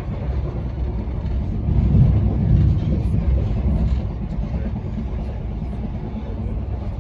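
Steady low rumble of a moving passenger train, heard on board, swelling a little about two seconds in.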